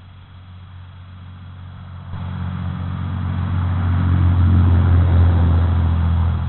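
A motor vehicle's engine running steadily, getting much louder about two seconds in and staying loud to the end.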